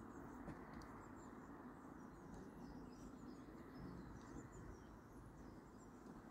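Near silence of open-air ambience: a faint steady background hiss with scattered, quiet high chirps of small birds.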